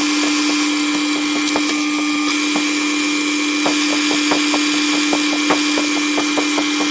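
Metal lathe spinning a brass piston blank while a centre drill in the tailstock bores into its end, played back sped up: a steady hum and whine with many small quick clicks.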